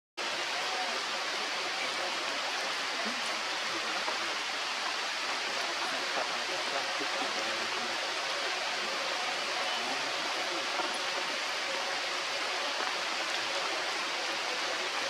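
Steady rain falling on forest foliage, an even hiss without a break.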